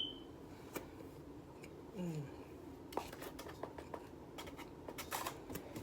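Argo cornstarch crunching and squeaking as it is chewed: a scatter of short crisp clicks and crackles, thickest from about three seconds in, with a brief hummed sound about two seconds in.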